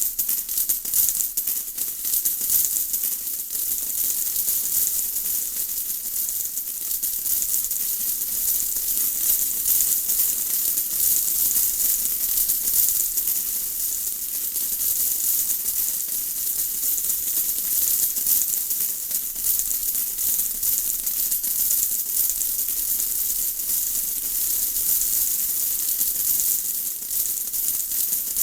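Steady rain: a dense, even patter of countless small drops, heard mostly as a high hiss with fine crackle, unchanging throughout.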